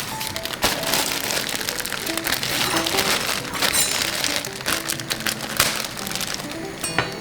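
Food sizzling and crackling in a hot frying pan, a dense hiss full of small pops, under background music.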